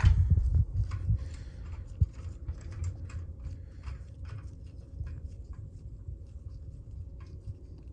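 Hands working on a golf cart's brake compensator and its adjusting nut: handling bumps at first, then a sharp knock and a run of light, irregular metal clicks that thin out after about four seconds.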